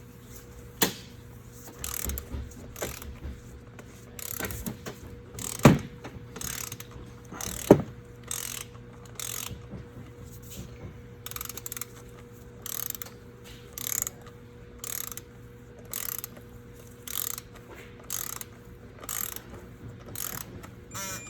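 Hand ratchet wrench being worked in repeated strokes, a burst of clicking about once a second, with a few sharp metallic clinks of tools in between.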